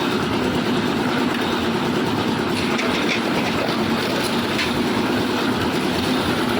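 Concrete mixer machine running steadily: a constant engine hum under dense mechanical noise, with a few faint ticks.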